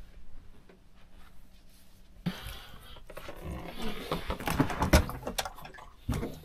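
Welsh corgi lapping water from a floor bowl, a run of quick irregular wet clicks that starts a little after two seconds in, with a few knocks among them.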